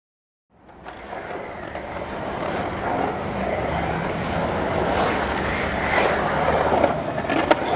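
A steady rumble fades in about half a second in: skateboard wheels rolling on the concrete bowl along with traffic noise, echoing under the overpass, with a few sharp clacks of the board near the end.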